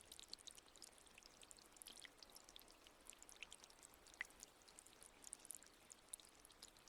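Faint trickling water: a dense, irregular patter of small drips and splashes over a soft hiss, with one slightly sharper drop about four seconds in.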